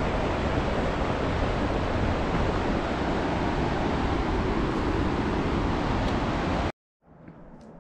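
Steady, loud rush of a fast mountain stream, cutting off abruptly near the end.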